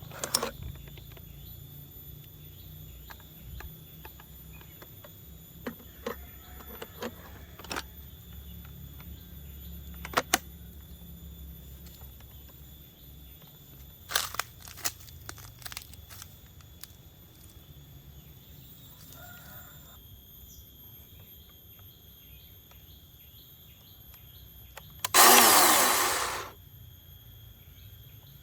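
Scattered clicks and knocks, then a Greenworks cordless electric chainsaw triggered once near the end: its motor spins up loud for about a second and winds down with a falling whine when released.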